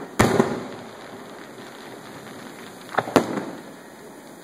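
Aerial fireworks shells bursting: two sharp bangs close together near the start, each with a short decaying tail, then another close pair of bangs about three seconds in.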